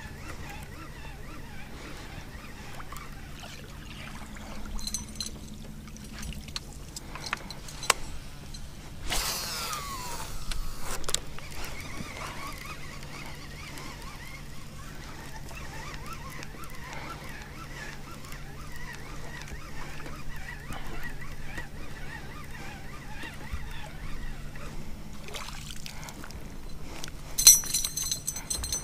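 Casting and retrieving a musky bucktail from a boat: a swish of rod and line about nine seconds in, then the lure being reeled back in. A steady low hum runs underneath, and a short clattery burst comes near the end.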